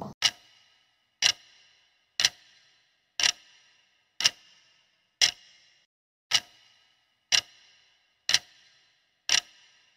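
Clock-tick sound effect of a quiz countdown timer: ten sharp ticks, one each second.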